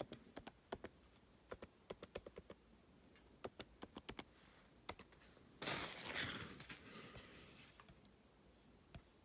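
Typing on a 15-inch MacBook Pro's butterfly-switch keyboard: irregular key clicks in quick runs for about five seconds. Then a louder rustling noise for about a second and a half, and one more click near the end.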